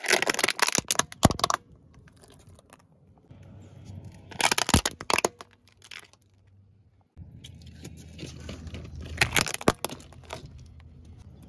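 Hard plastic toys cracking and crunching as a car tyre rolls over them, in three bursts of sharp snaps: right at the start, about four and a half seconds in, and about nine seconds in.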